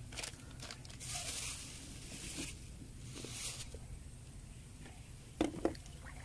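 River water splashing and sloshing around a wading man's body and arms as he gropes underwater by hand, in two spells, with two sharp knocks about five and a half seconds in.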